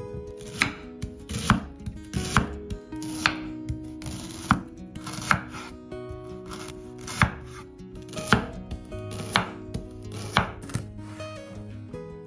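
Chef's knife slicing a raw fennel bulb on a wooden cutting board: a crisp cut ending in a knock of the blade on the board, about once a second.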